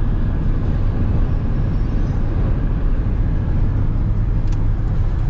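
Steady low rumble of a car driving at highway speed, heard from inside the cabin: tyre and engine noise, with one faint click about four and a half seconds in.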